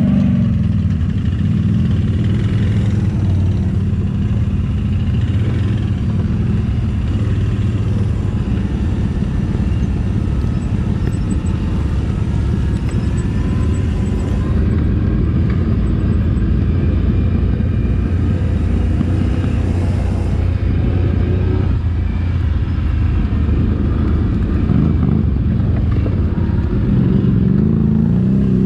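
An off-road ATV engine running hard through the whole stretch, with its pitch rising again near the end as it revs up.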